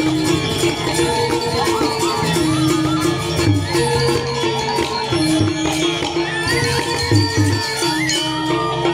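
Balinese gamelan music playing: a short phrase of pitched metallic tones repeating over a dense, continuous ensemble texture.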